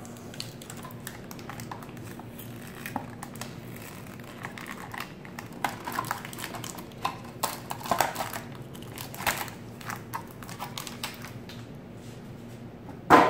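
Clear plastic bag being crinkled and pulled open by hand, a run of irregular crackles and clicks, over a low steady hum. One loud sharp sound comes near the end.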